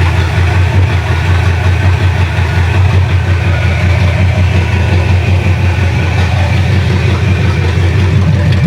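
Freshly rebuilt Chevrolet 305 small-block V8 idling steadily on open headers with no exhaust system fitted, run to warm it up.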